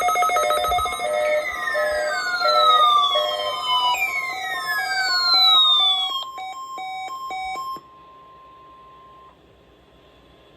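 Electronic emergency alert tones: layered pulsing beeps with two long falling siren-like sweeps, then rapid stuttering beeps that stop abruptly about eight seconds in. A single steady tone carries on alone and cuts off about a second and a half later.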